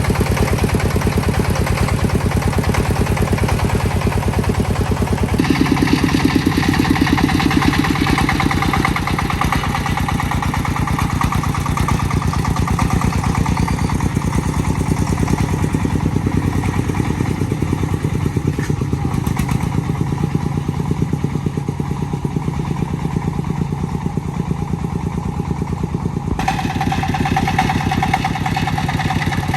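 Công nông farm vehicle's single-cylinder diesel engine running steadily with a fast, even chugging beat. Its tone shifts abruptly about five seconds in and again near the end.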